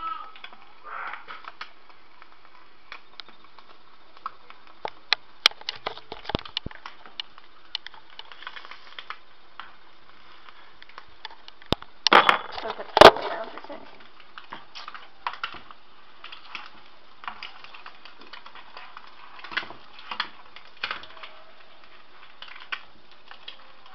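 An egg frying in a pan, crackling and popping in irregular clicks over a steady hiss. About twelve seconds in, a loud knock and rustle as the camera is handled and set down.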